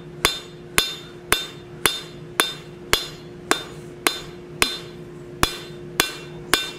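Cross-peen hammer striking mild steel on the anvil in an even rhythm of about two blows a second, each blow ringing briefly. The peen is drawing the leaf out in width from its centre towards the edges.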